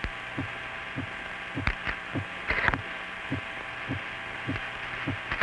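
A heartbeat beating about twice a second over a steady electrical hum, with one brief higher-pitched burst a little past halfway.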